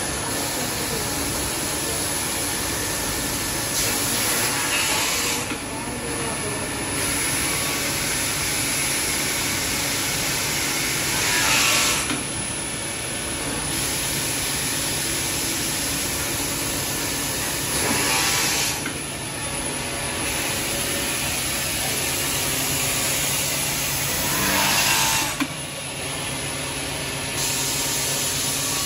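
Robot-mounted drill spindle drilling holes in an aluminium roof rail over steady machine running noise. Four louder surges come about every six to seven seconds, some rising in pitch, as each hole is drilled.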